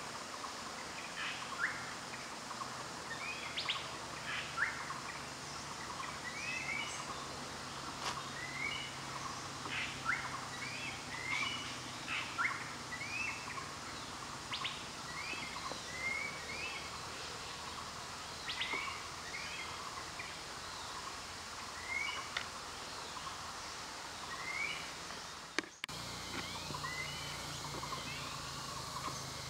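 Forest birdsong: several birds giving short, repeated chirping calls over a steady background hiss, broken briefly near the end where the recording cuts.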